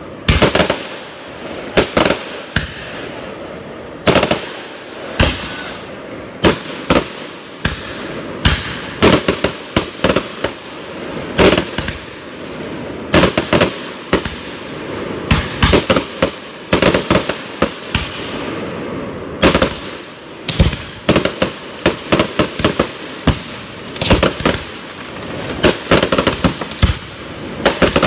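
Aerial firework shells bursting in a rapid, irregular barrage of bangs, often several a second, over a continuous rumble: a mid-show burst of shells like a small finale.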